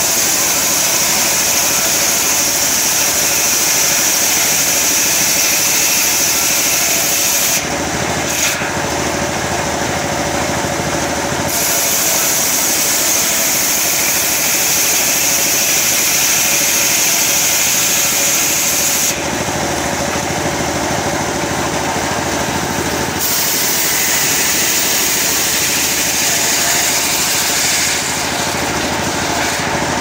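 Table-mounted circular sawmill blade ripping gempol wood into boards: a steady machine drone under the high, rushing sound of the blade in the cut. The cutting sound drops away twice as the blade runs free between passes, and again near the end.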